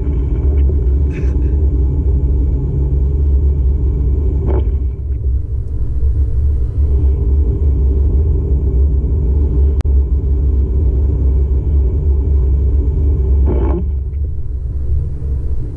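Steady low road-and-engine rumble inside a moving car's cabin, with two brief knocks about nine seconds apart.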